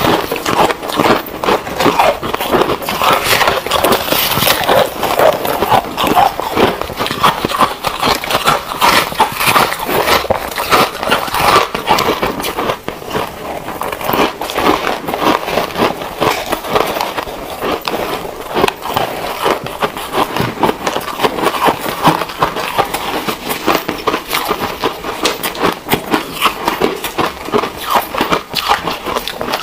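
Close-miked crunching and chewing of shaved ice and blue-dyed ice chunks. Two eaters' tracks are layered into a dense, unbroken run of crisp crunches.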